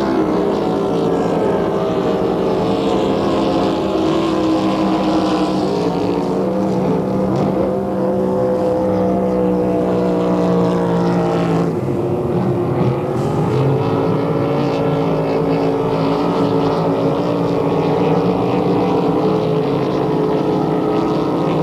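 Racing powerboat engine running loud and steady, its pitch dropping sharply about twelve seconds in and then climbing back as the throttle comes on again.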